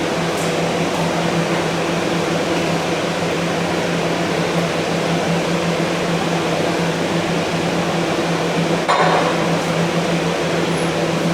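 Steady mechanical hum with a low droning tone, like ventilation or a fan running, and a short burst of noise about nine seconds in.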